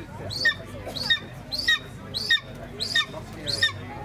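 A young captive-bred golden eagle on the falconer's glove gives a run of short, high, squealing calls, about six of them, one every half second or so. It is a bird imprinting on its handler.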